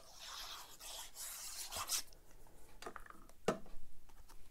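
Paper cardstock rubbing and sliding against cardstock as a card front is pressed and smoothed onto a card base, followed by a few short taps, the strongest about three and a half seconds in.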